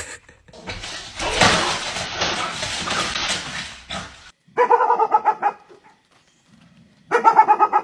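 About three seconds of loud, even noise, then a dog barking in two quick bursts of rapid barks, the second near the end.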